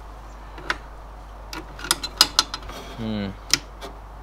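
Multimeter test probes clicking and tapping against the terminal screws and plastic breaker housings on a switchboard's DIN rail while testing for 240 V. The taps are scattered, with a quick cluster of the loudest ones in the middle. A brief hummed grunt comes about three seconds in.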